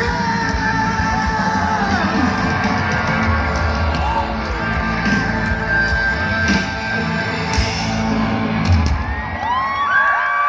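Loud rock music with singing, and yells from the crowd. Near the end the heavy bass drops out and several high whistling tones rise and fall.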